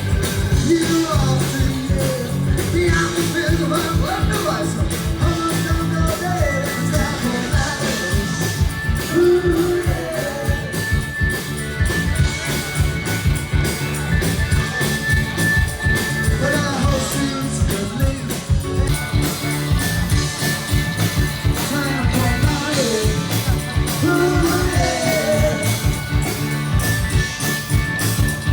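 Rock music with a steady beat and a singing voice.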